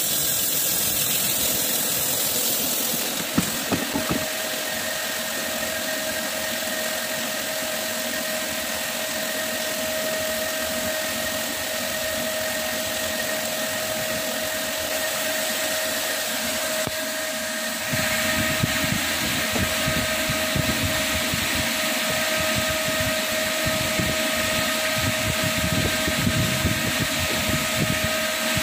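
Metal lathe running steadily with a constant machine hum and whine while machining an air breaker hammer piston. A hiss of coolant spray stops about three seconds in, and from about eighteen seconds a rougher rattling rumble joins.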